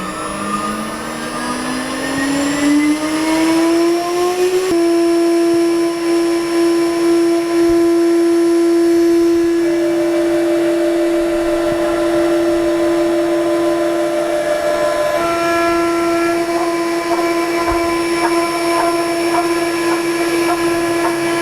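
6040 CNC router spindle winding up to speed: a whine that rises in pitch for the first five seconds or so, then holds steady as the job starts.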